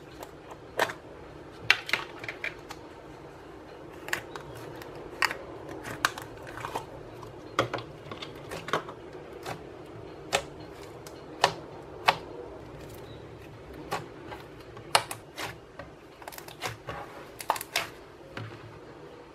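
Homemade slime being poked, pressed and stretched by hand, giving irregular sharp clicks and pops, one or two a second, over a faint steady hum.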